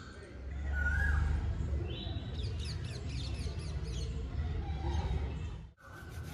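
Birds calling: short whistled notes and a quick run of high, falling chirps, over a steady low rumble. The sound drops out suddenly for a moment near the end.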